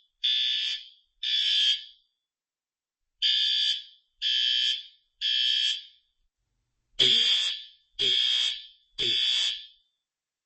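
Commercial fire alarm system sounding in alarm after a pull station is pulled. Its high-pitched sounders go off in groups of three pulses with a pause between groups, the temporal-three evacuation pattern.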